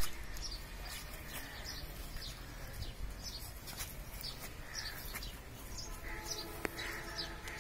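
Small birds chirping repeatedly, short high chirps every second or so, over a steady low outdoor background noise.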